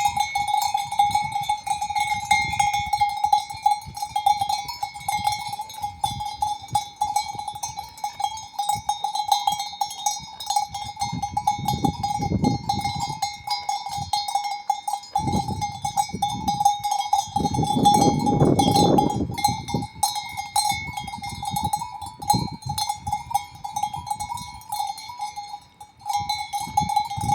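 Cowbells on grazing cows clanking and ringing without a break, with a steady ringing tone. A deeper sound swells up a few times, loudest about two thirds of the way through.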